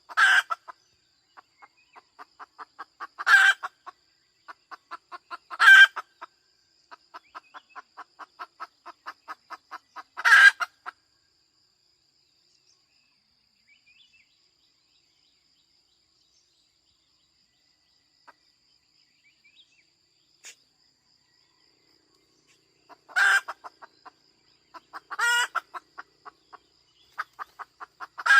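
A hen cackling: runs of quick short clucks, each run broken by a loud drawn-out squawk. It falls quiet for about ten seconds midway, then starts again.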